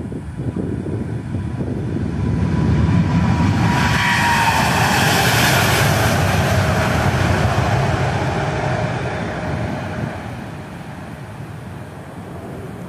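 Boeing 787-9 Dreamliner's GEnx-1B turbofans at takeoff thrust as the airliner lifts off and passes close by. The jet noise swells, the engines' whine drops in pitch as it goes past, and the sound fades as it climbs away.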